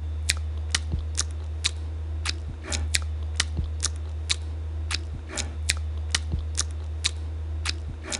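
Sharp, regular ticks, about two a second, over a steady low hum that starts and cuts off abruptly.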